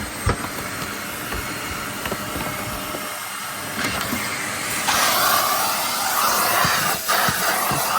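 Small vacuum cleaner running, with a couple of knocks near the start; about five seconds in its hiss turns louder and brighter.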